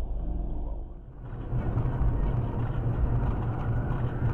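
Steady low drone of a car's engine and road noise heard from inside the cabin, as a dashcam picks it up while driving. The sound dips briefly about a second in, then runs on steadily.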